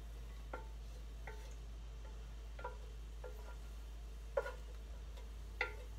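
A wooden spoon knocking and scraping sautéed vegetables out of a skillet into a glass bowl: about six light knocks with brief ringing, spaced irregularly, the loudest a little past four seconds in.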